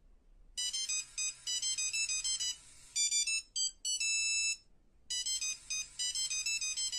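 Phone ringtone: a fast, high-pitched electronic melody of short beeping notes, breaking off briefly about three seconds in and starting again about two seconds later.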